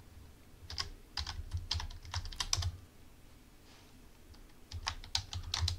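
Typing on a computer keyboard: a run of quick keystrokes, a pause of about two seconds, then another short run near the end.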